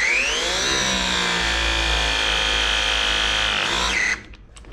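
Hydraulic pipe press tool crimping a 2-inch press fitting onto the pipe. Its motor whines up in pitch over the first second, runs steadily under load, then stops about four seconds in as the press cycle finishes.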